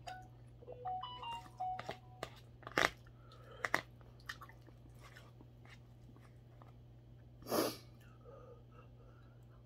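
Close-up eating sounds from a person eating mackerel porridge with a metal spoon: chewing, with the spoon clicking and scraping against a plastic container, and one louder slurp about seven and a half seconds in.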